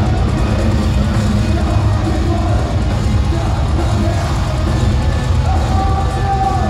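Post-black metal band playing live at full volume: distorted guitars, bass and a drum kit in a dense, unbroken wall of sound, heard from within the audience in a concert hall.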